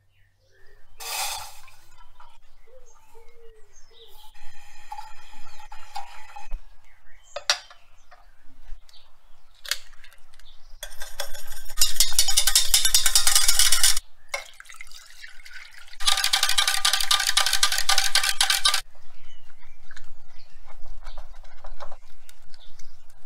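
Wire whisk beating a runny mixture in a stainless steel saucepan: two bursts of fast strokes, each about three seconds long, with scattered light clinks and knocks of utensils in between.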